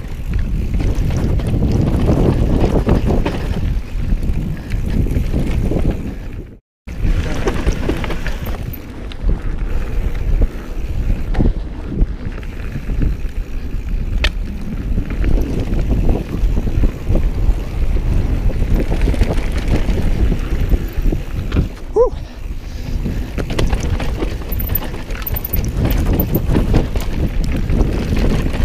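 Wind buffeting the camera microphone over the continuous rumble of mountain bike tyres rolling down a rocky dirt trail, with short knocks and rattles from the bike over rocks. The sound cuts out abruptly for a moment just before 7 s.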